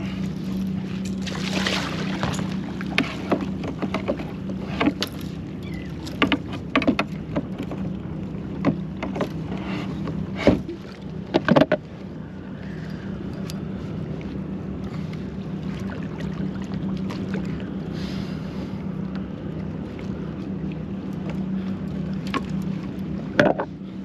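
A steady low engine hum, with scattered knocks and clunks against a kayak through the first half and two louder thumps a little before the middle.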